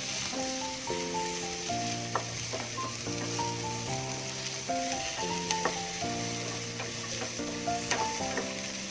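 Chopped onions with cashews, garlic and ginger sizzling steadily in hot oil in a pan, with a few short clicks of stirring, under soft instrumental background music.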